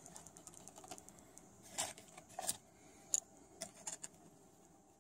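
Faint, scattered light clicks and taps of a paintbrush working paint on a palette while mixing acrylic colours, about five sharp ticks spread irregularly.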